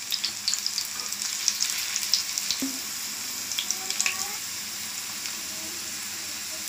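Batter-coated bitter gourd rings deep-frying in hot oil: a steady sizzle with crackling pops, busiest in the first two or three seconds as more slices go into the oil, then settling into a more even hiss.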